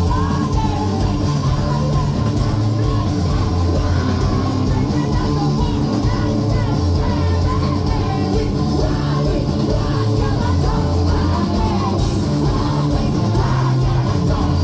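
Post-hardcore band playing live, loud and dense, with a fast, steady drumbeat under guitars and yelled vocals.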